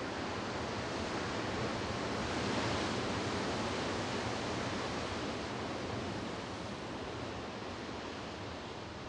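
Ocean surf washing: a steady rushing that swells to its loudest two to three seconds in and then slowly eases off.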